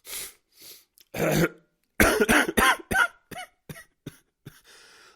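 A man with a bad cough: one cough about a second in, then a fit of rapid, loud coughs around two seconds in, trailing off into a few smaller hacks and a breath near the end.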